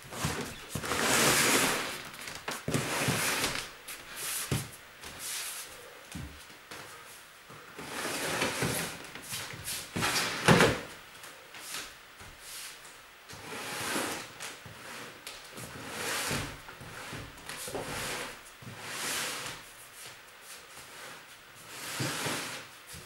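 Boxes being shifted, slid and set down in a series of scraping, rustling handling noises, with one sharp knock about ten seconds in.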